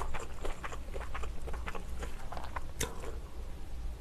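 Soft, irregular clicks and small handling noises of chopsticks picking up meat from a plate and laying it on a sheet of banh hoi rice vermicelli, over a faint steady low hum.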